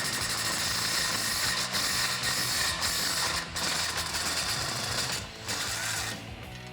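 Power wrench on a 13mm socket running in a fast rattle, spinning out the bolts of the truck's front exhaust flange. It runs in several spells with brief breaks and stops about six seconds in.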